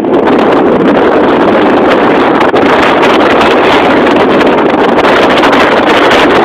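Strong wind screeching across the microphone: a loud, steady rush of wind noise that never lets up.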